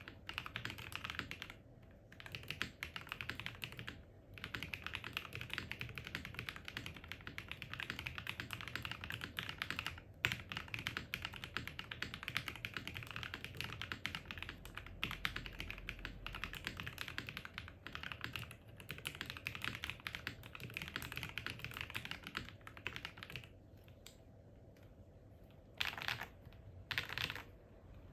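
Typing on a QK80 mechanical keyboard built with an FR4 plate, full foam and lubed, filmed Modern Gray switches: a fast, continuous run of keystrokes with a few brief pauses. Near the end there is a lull of about two seconds, then a few short bursts of keys.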